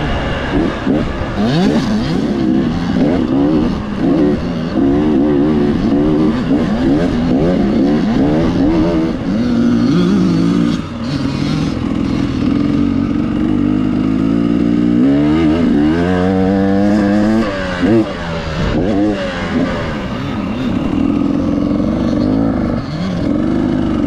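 Dirt bike engine under way on a trail, its pitch rising and falling again and again as the throttle opens and closes through the gears, with a long rising rev about two-thirds of the way through.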